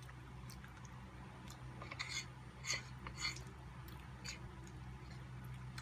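Forks clicking and scraping on a serving plate while apple crumble is chewed, with a few sharp clicks about two to four seconds in, over a low steady hum.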